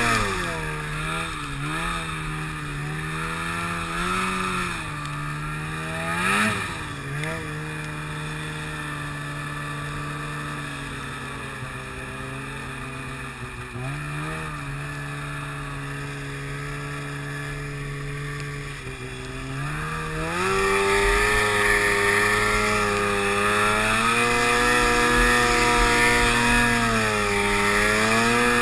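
Polaris XC snowmobile's two-stroke engine running under a rider: it eases off at the start and runs at a low, wavering pitch with a short rev about six seconds in, then opens up about twenty seconds in and holds a higher, louder pitch.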